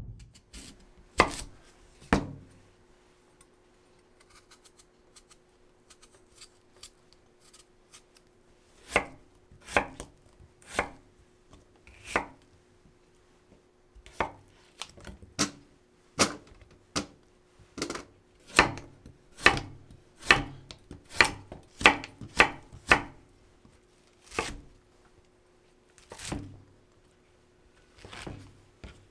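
Kitchen knife chopping on a wooden cutting board, slicing daikon radish and then shimeji mushrooms: sharp knocks of the blade on the board, two at first, then only faint ticks for several seconds, then coming faster to about two a second before thinning out near the end.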